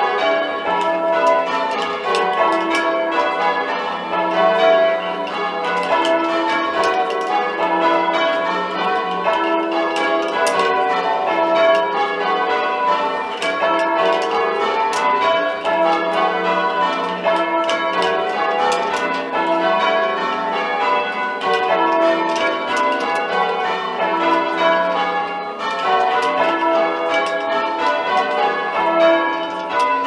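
A ring of six church bells being rung in changes, with the tenor at about 13 cwt sounding E and the back five cast by Joseph Hatch in 1605. They are heard from the ringing chamber beneath the bells. The strokes follow one another in a steady, continuous run.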